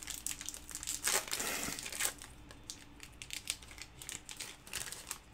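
Trading card pack wrapper being torn open and crinkled by hand, busiest in the first two seconds, then sparser rustles and ticks.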